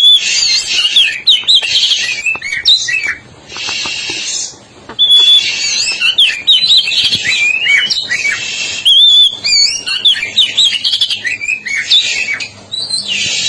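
Oriental magpie-robin of the black-breasted East Javan form singing actively: quick varied whistles and sweeping notes mixed with harsh, raspy notes, in phrases broken by brief pauses.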